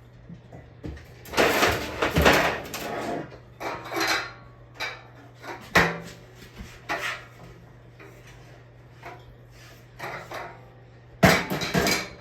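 Clattering and knocking of hard objects being handled, in several loud irregular spells, over a steady low hum.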